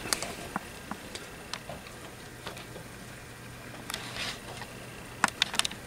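Scattered light clicks and ticks, with a quick run of several clicks near the end, over a faint steady hum.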